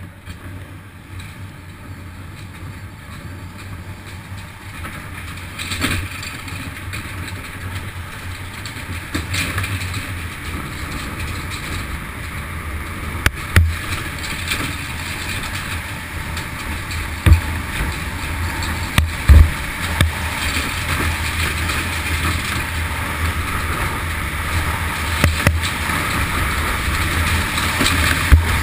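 Bobsled running down an ice track: a steady rumble and hiss of the runners on ice and rushing air, growing louder as the sled gathers speed. Several sharp knocks as the sled jolts over bumps, the loudest about two thirds of the way through.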